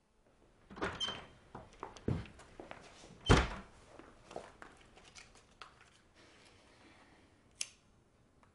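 A run of knocks and handling sounds with one loud thunk about three seconds in, then a single sharp click of a cigarette lighter being struck near the end.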